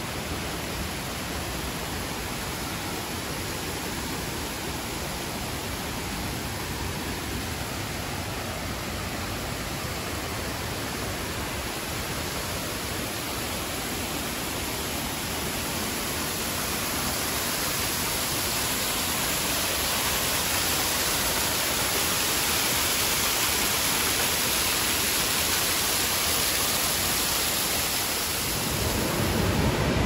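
Waterfalls: a steady rush of falling water that grows louder partway through. Near the end it changes to the deeper, louder rush of a wide cascade.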